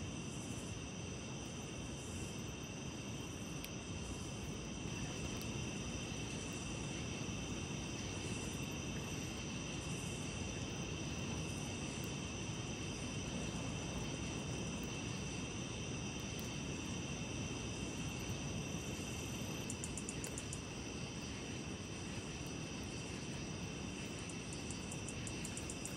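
Crickets and other night insects calling in a steady chorus of high trills, over a steady low rush of water spilling over the nearby river dam.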